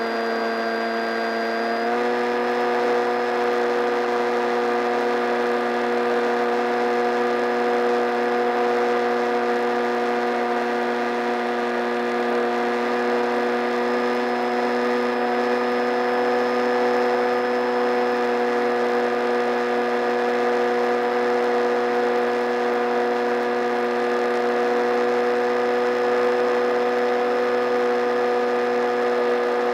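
Onboard sound of an RC foam plane's electric motor and propeller, a steady high whine with rushing air noise; the pitch steps up slightly about two seconds in as the throttle is advanced.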